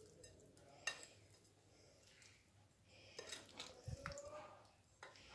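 Mostly near silence, with faint scraping and clinks of a metal spoon stirring oil-coated spiced cauliflower pieces in a bowl, mixing in the vinegar, and a single click about a second in.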